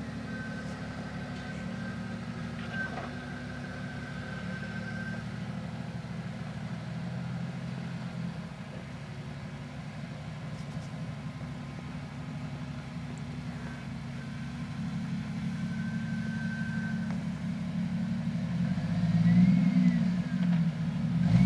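Off-road Jeep's engine running slow and steady as it crawls over a rock mound, then revving up and down a few times near the end as it climbs down.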